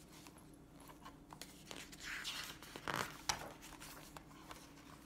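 Pages of a picture book being turned and handled: paper rustling and sliding about two to three seconds in, with a short click just after.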